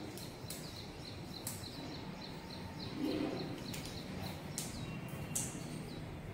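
A small bird chirping over and over, short high chirps about two or three a second. A few soft rustles and a low knock about halfway through come from handling nearby.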